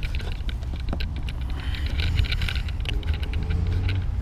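Small plastic clicks and scrapes as a licence-plate light housing is worked loose from a car's rear panel, over a steady low rumble.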